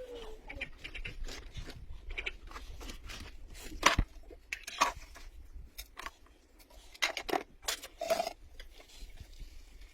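Irregular knocks, clicks and rustling, like objects being handled, with one sharp knock about four seconds in and a few more near the end.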